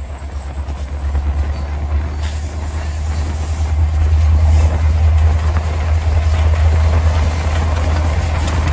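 EMD diesel locomotives, an SD70M-2 and an SD40-2W, running with their train, heard from a car pacing it, under a heavy steady low rumble of road and wind noise. The sound grows louder over the first few seconds.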